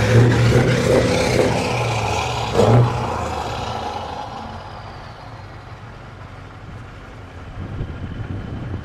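Scania V8 truck engine with an open straight-pipe exhaust, running loud as it passes close by, with a brief rev about two and a half seconds in. It then fades steadily as the truck pulls away.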